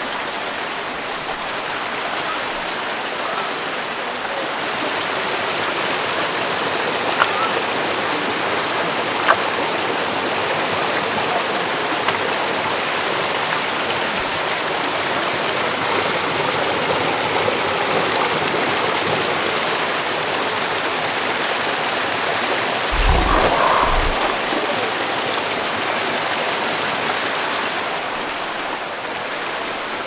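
Steady rushing of a mountain creek and small waterfall cascading over boulders, with a brief low rumble about 23 seconds in.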